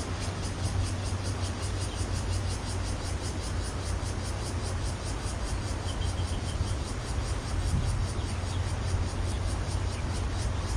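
Steady rush of a shallow flowing river with wind rumbling on the microphone, and a fast, even high-pitched ticking running through it.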